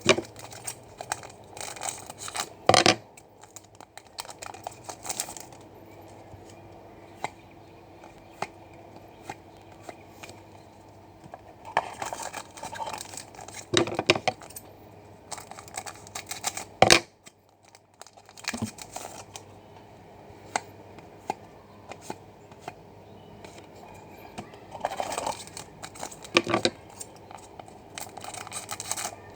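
Trading card pack wrappers being torn open and crinkled, with cards being handled, in several bursts separated by quieter pauses.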